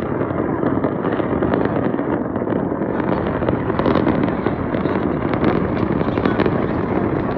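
Fireworks going off in a dense, continuous crackle of many small pops.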